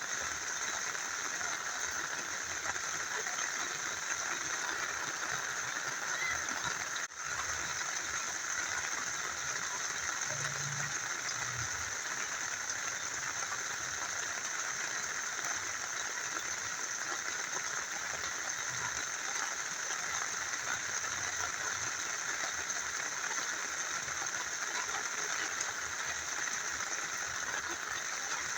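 Rain falling together with a small river flowing: a steady, even rush of water, with a brief dip in level about seven seconds in.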